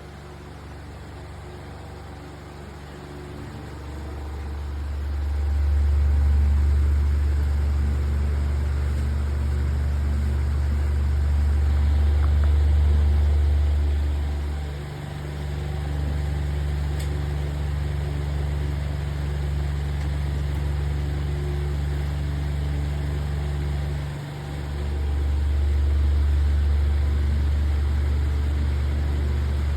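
Electric wall fan running, its airflow rumbling on the microphone. The rumble builds over the first few seconds and dips briefly twice.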